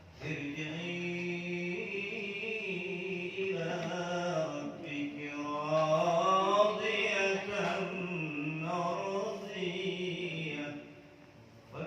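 A man's voice chanting slowly and melodically, holding long, drawn-out notes that rise and fall, in the style of Islamic religious recitation. It breaks off about a second before the end.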